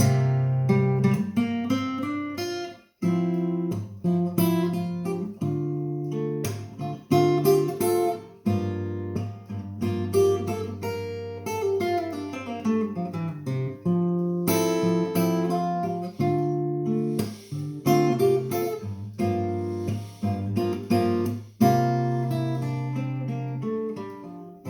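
Instrumental passage of a song on acoustic guitar: picked notes and strums, with a brief pause about three seconds in and a descending run of notes about halfway through.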